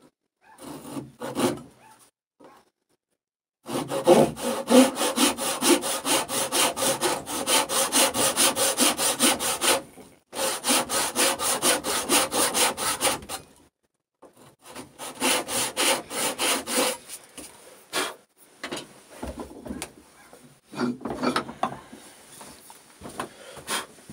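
Hand saw crosscutting a hardwood post along a knifed line, cutting a joint shoulder. It goes in runs of quick, even push-pull strokes with short pauses between, the strokes becoming sparser near the end.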